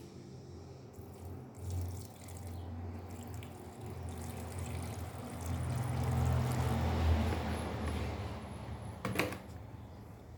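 Water running in a mini washing machine, growing louder toward the middle and easing off, over a steady low hum. A single sharp knock near the end.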